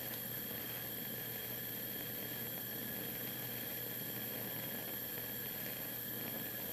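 Lit Bunsen burner running, a steady even hiss.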